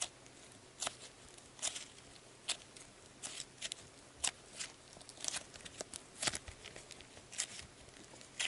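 Soft slime mixed with small beads being kneaded and squeezed by hand, giving short irregular clicks and crackles, about two a second.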